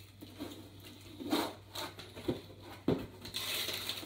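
Cardboard box and paper rustling and tearing as a gift is unpacked, with two light knocks about two and three seconds in.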